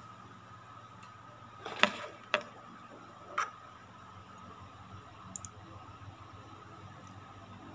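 A few sharp plastic clicks and taps, two close together about two seconds in and one more a second later, then a couple of faint ticks, as a small plastic hair clip and other hair things are handled. A faint steady high hum runs underneath.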